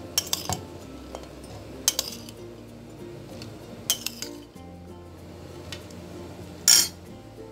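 A metal spoon clinking against a glass bowl and a blender jar as chopped red chillies are spooned in: four separate sharp clinks about two seconds apart, the loudest near the end. Soft background music runs underneath.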